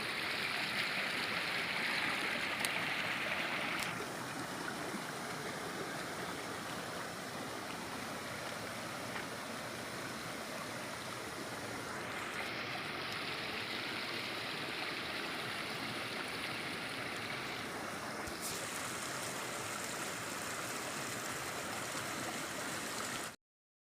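River water rushing over rocks at a waterfall, a steady noise of running water that shifts abruptly in tone a few times and cuts off just before the end.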